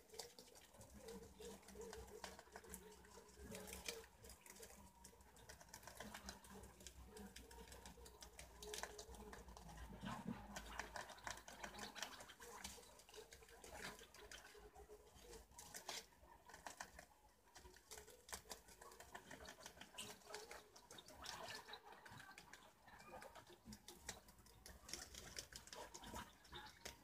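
Faint rustling and fine, irregular clicking of wild cavies (preás) feeding and moving among leaves and vegetable scraps.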